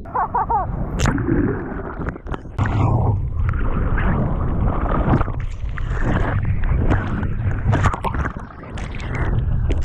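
Sea water splashing and sloshing against a GoPro held close to the surface in rough surf, with a heavy low rumble and many sharp splash crackles, briefly dipping twice as the water shifts around the camera.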